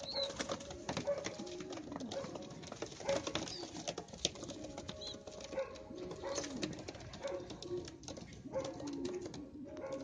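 A flock of young racing pigeons cooing continuously, many low rolling coos overlapping, with scattered sharp clicks throughout.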